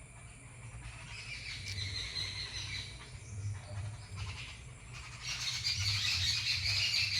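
Small birds chirping and chattering, several calling over one another, the chorus growing louder about five seconds in.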